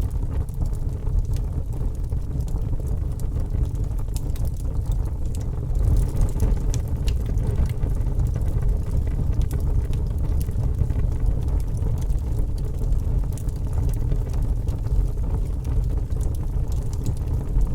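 Fire crackling: scattered sharp pops and crackles over a steady low rumble, the crackles coming a little thicker from about six seconds in.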